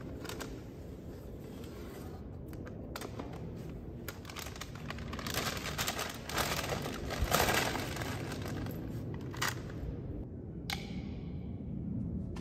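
Rustling and crackling close to the microphone, with scattered sharp clicks, louder in the middle and dying down near the end.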